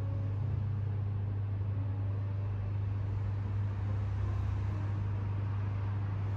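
Steady low machine hum over a faint, even hiss, holding at one level throughout.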